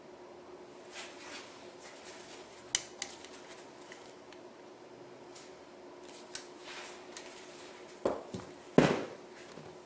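Handling of a 9mm Uzi carbine fitted with a faux suppressor: a few sharp clicks about three seconds in, then two louder knocks near the end. A faint steady hum runs underneath.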